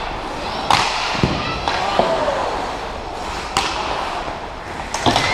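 Ice hockey play: about five sharp knocks and clacks from sticks and the puck striking the ice and boards, over the steady din of the rink.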